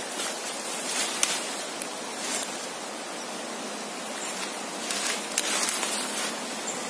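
Steady hiss of flowing stream water, with brief rustles of grass and leaves about a second in and again around five to six seconds in.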